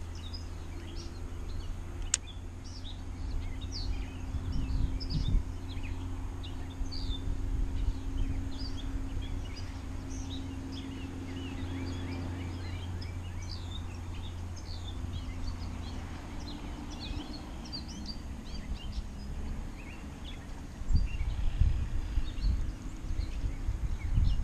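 Songbirds chirping and singing in a chorus of many short, high calls, over a steady low hum. Irregular low rumbling comes in near the end.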